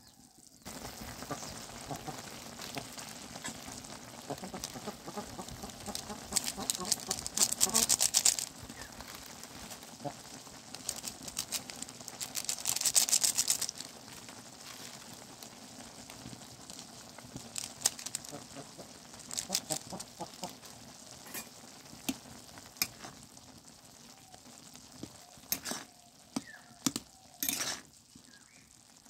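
Masala noodles bubbling and sizzling in an iron wok, with two loud bouts of dense crackling sizzle. Near the end a metal spoon stirs the noodles, clicking and scraping against the wok.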